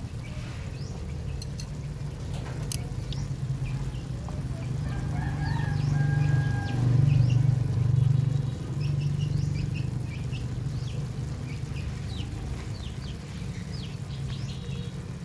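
Chickens and small birds calling and chirping repeatedly, over a steady low rumble that swells about six to eight seconds in.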